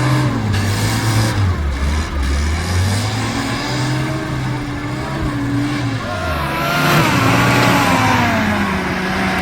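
Off-road jeep engine revving up and down under load on an obstacle, with a louder rushing surge about seven seconds in.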